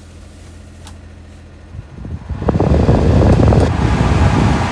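Heater blower fan of a 1997 Suzuki Carry mini truck switched on about two and a half seconds in, running with a loud, steady rush of air from the dash vents. Before it comes on, only a low steady hum.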